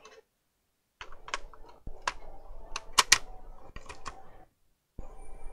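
A laptop hard drive being handled and pushed into its drive bay: an irregular run of sharp small clicks and knocks of plastic and metal, broken twice by short gaps of silence.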